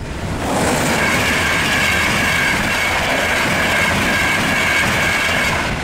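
Electric LNER express train passing at speed just beyond a level crossing. A loud rush of wheels on rail and air rises sharply within the first second, holds steady, and falls away near the end, with a steady high whine riding over it.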